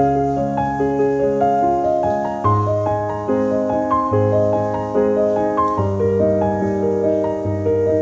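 Background music: a solo piano playing a flowing melody of about two notes a second over slower-changing bass notes.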